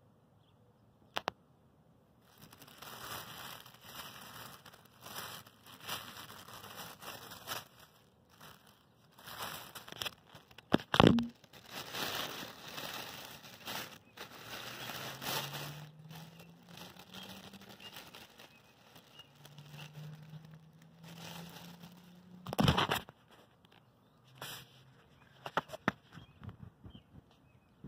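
Black plastic garbage bag crinkling and rustling as it is handled close to the microphone. Two loud knocks stand out, one a little before halfway and one near the end.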